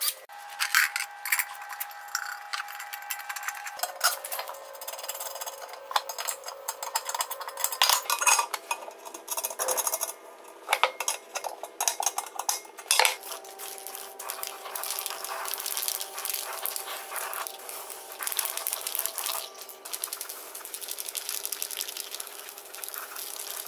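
Metal clinks and clatter of hand tools and steel parts: bolts, a wrench and a steel plate on a steel wheel rim. The background changes abruptly every few seconds.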